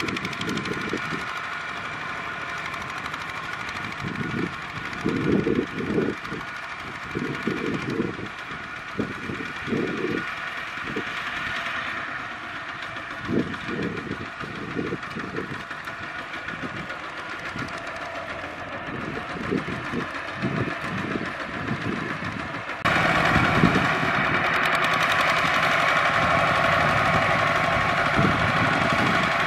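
Kubota RT single-cylinder diesel engine of a two-wheel walking tractor running under load while plowing, with irregular low thumps throughout. About 23 seconds in the engine becomes suddenly louder and closer.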